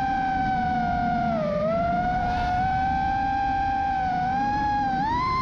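FPV quadcopter's brushless iFlight XING2 2306 motors and props whining steadily in flight over a rushing noise. The pitch dips about a second and a half in and climbs near the end as the throttle changes.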